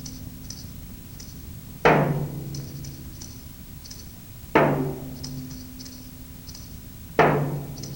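Slow instrumental accompaniment music: a deep chord struck three times, about every two and a half seconds, each one dying away, with light high ticking percussion in between.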